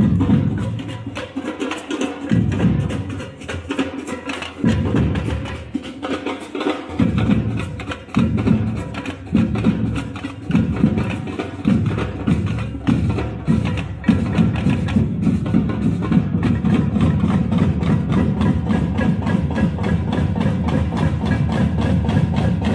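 Drum band playing marching drums together in fast, rapid strokes. It goes in loud stop-start phrases with short breaks at first, then settles about halfway through into a steady, unbroken beat.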